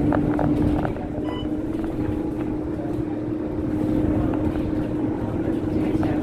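Scania K230UB bus moving, heard from inside the cabin: its drivetrain runs with a steady whine over low road rumble, with a few light rattles in the first second.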